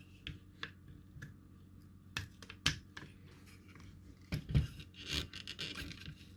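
Scattered light clicks and knocks of a small circuit board and parts being handled and repositioned on a workbench, with a duller thump about four and a half seconds in.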